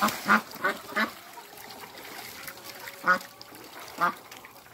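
Domestic ducks quacking: a quick run of three quacks at the start, then two single quacks about a second apart near the end.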